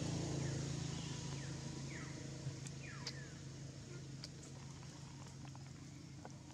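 A low engine hum that slowly fades away, with a few short falling chirps and scattered sharp clicks over it.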